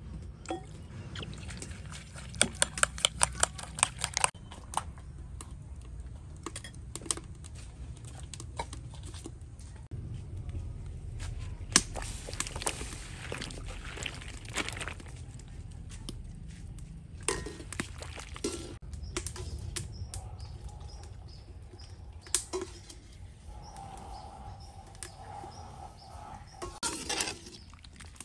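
Kitchen cooking sounds: a fast run of sharp clicks from utensil on bowl a couple of seconds in, then chilies dropped into a wok of boiling, steaming water and scooped with a metal mesh strainer, with scattered knocks over a steady low rumble.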